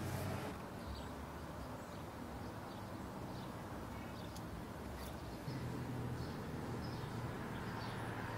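Outdoor street ambience: a steady low rumble of traffic, with faint, scattered short bird chirps.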